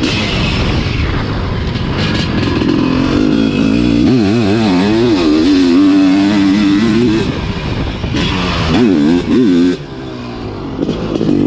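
Sidecarcross racing outfit's motorcycle engine, heard close from on board, revving hard and rising and falling quickly as it is ridden round a dirt motocross track. The revs drop briefly near the end, then pick up again.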